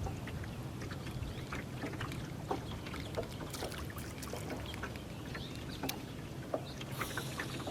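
Choppy water lapping and splashing in small irregular slaps over a steady low wind rumble, with a brief hiss near the end.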